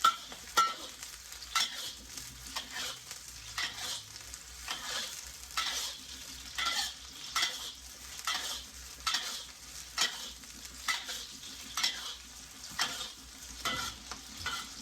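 Mixed vegetables and onion sizzling in oil in a hot wok, stirred and tossed with a utensil in repeated short scraping strokes roughly once a second.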